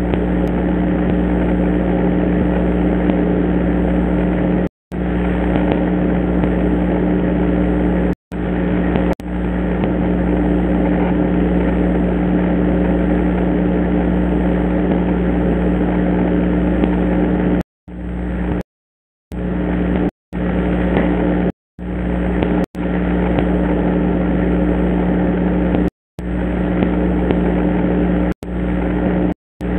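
Steady hum and hiss of a Foscam indoor pan/tilt IP camera's microphone feed in an empty room, cutting out abruptly to silence about ten times, once for more than a second around two-thirds of the way through.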